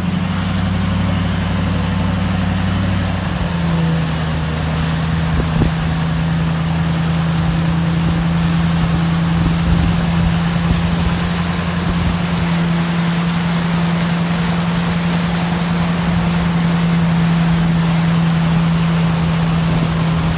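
Engine of a four-wheel-drive vehicle running steadily while it drives over a farm field, with rumbling road and body noise. The engine note shifts a few seconds in, then holds steady.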